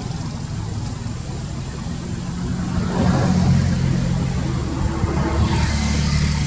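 A motor vehicle engine running nearby, a steady low hum that grows louder about three seconds in.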